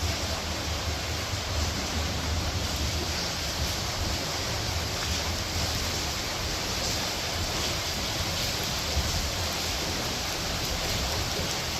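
Steady rain falling: a constant even hiss with a low rumble underneath.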